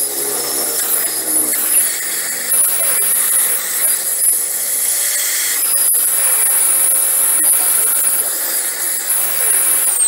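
A small high-speed electric motor running with a steady high whine and rushing air, briefly cutting out a little after halfway, then starting to spin down at the very end. Light knocks of plastic vacuum-cleaner parts being handled.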